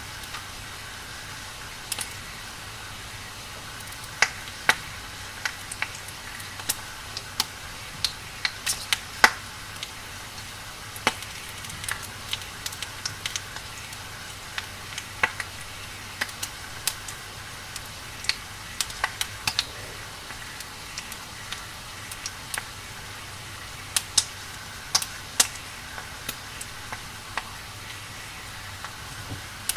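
Burning wood fire crackling: a steady hiss broken by irregular sharp pops and snaps, some clusters of several quick cracks together.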